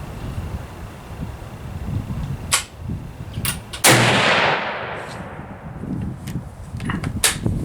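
A single shot from a Yugo M24/47 Mauser bolt-action rifle in 8mm Mauser, about four seconds in, with a long echo fading away after it. Several sharp clicks come before and after the shot.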